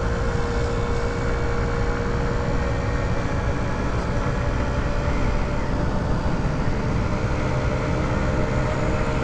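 Honda Ruckus scooter riding along at a steady speed: its engine running evenly under a heavy rush of wind and road noise.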